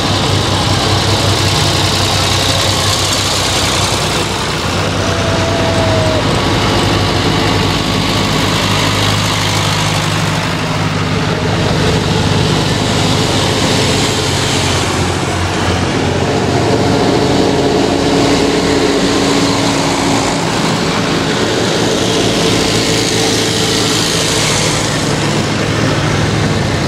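Vintage farm tractor engines, among them a red Massey Ferguson, running steadily as a procession of tractors drives past one after another; the sound swells several times as each one passes close.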